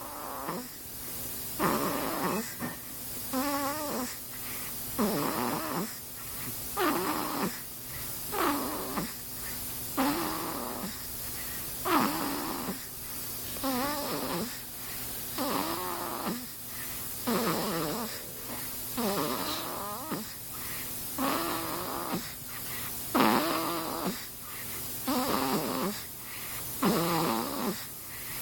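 A sleeping baby snoring: a short pitched snore on each breath, repeating about every one and a half to two seconds, some snores with a wavering, rattly pitch.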